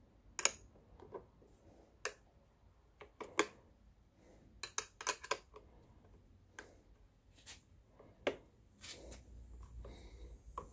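Light clicks and taps of tools and metal parts being handled on a chainsaw as the chain is tightened: about a dozen sharp, irregularly spaced clicks, with a cluster of several in quick succession near the middle.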